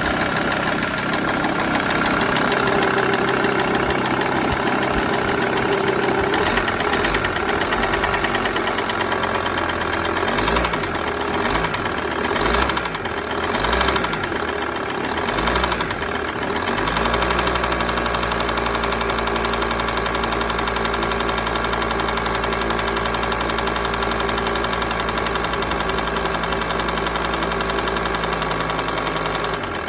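Volkswagen LT35 van's 2.5-litre diesel engine running with a ticking noise. Its speed rises and falls a few times about halfway through, then it settles into a steady idle.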